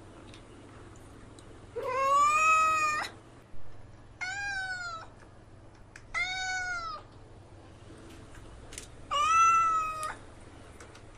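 Kitten meowing four times, high-pitched calls about a second long each, with pauses between them.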